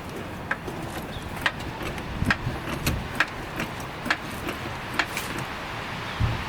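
Irregular sharp clicks and knocks of suspension parts and tools being handled during a rear coilover spring install, roughly one every half second over a steady background hiss.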